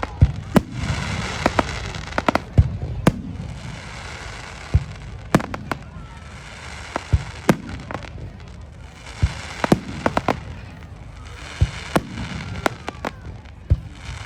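Fireworks display: sharp bangs of bursting shells at irregular intervals, several a second at times, over a continuous crackle.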